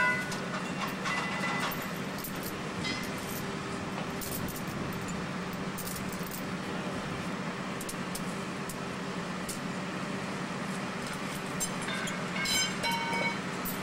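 An engine running steadily, a low, even hum that doesn't change in pitch. A few short higher-pitched sounds stand out briefly about a second in and again near the end.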